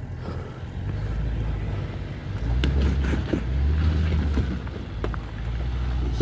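Range Rover Sport engine running at low revs as the SUV crawls over loose rocks, growing louder for a couple of seconds in the middle as it works harder, with a few sharp crunches and clicks of stones under the tyres.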